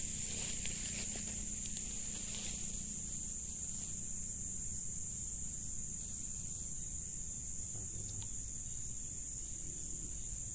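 Steady high-pitched drone of insects in the streamside vegetation, holding one even pitch throughout. A few faint rustles come in the first couple of seconds.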